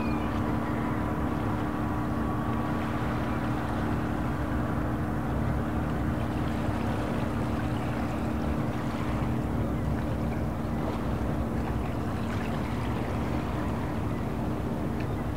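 A boat's engine running with a steady low hum over an even wash of harbour water noise.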